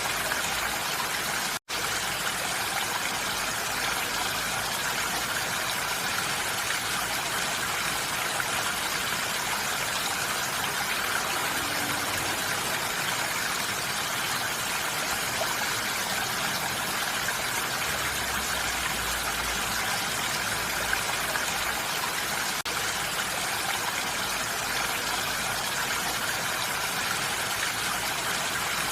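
Steady rain falling on a roof, an even hiss with no single drops standing out, broken by a split-second gap of silence about one and a half seconds in.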